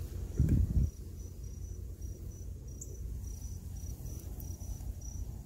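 Cricket chirping steadily in short, even, high-pitched pulses, about three a second, over a low outdoor rumble. A brief low thump sounds about half a second in.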